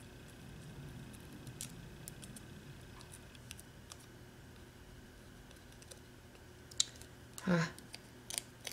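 Faint scattered clicks and light taps of fingers handling cardstock pieces and picking the backing paper off small foam adhesive dimensionals. A short vocal sound comes near the end.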